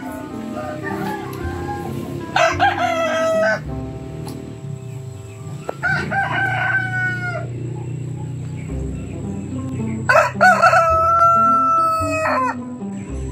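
Roosters crowing three times, each crow a held, pitched call, the last one the longest.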